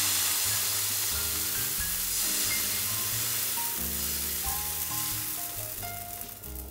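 Thin flour-and-water batter sizzling as it hits a hot nonstick pan and is spread with a ladle. The sizzle fades slowly toward the end, over light background music.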